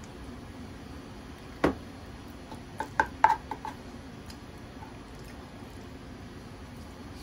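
A spoon knocking and scraping in a bowl of leftover curry: one sharp knock about a second and a half in, then a quick run of clinks around three seconds. A low steady hum sits underneath.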